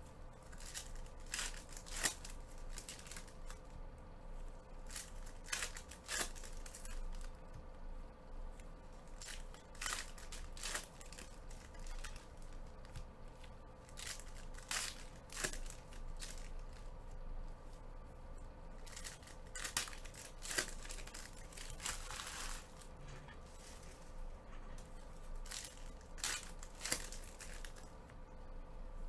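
Foil trading-card pack wrappers being torn open and crinkled by hand, a string of short rips and crackles, along with the cards being handled.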